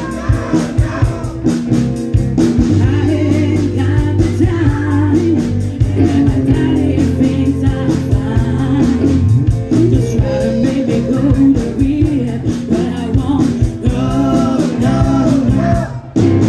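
Live rock band playing: a lead singer over electric guitars, bass and drums, with a steady beat. Near the end the music drops out briefly and closes on one last loud hit.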